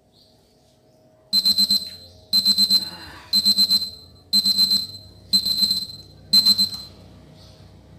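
Taylor digital kitchen timer sounding its alarm when the five-minute countdown runs out. It gives six bursts of rapid high-pitched beeps, about one burst a second, and stops about a second before the end.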